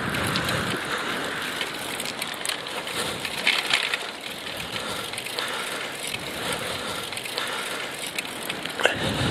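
Riding noise of a recumbent bicycle on the road, picked up by an earpiece microphone worn by the rider: a steady rushing hiss of wind and tyres, with scattered small clicks and rustles.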